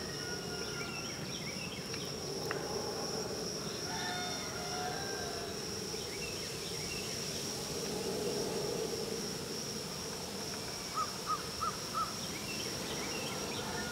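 A steady high insect drone runs under scattered bird chirps and whistles. Near the end a bird calls four quick short notes, the loudest sounds here.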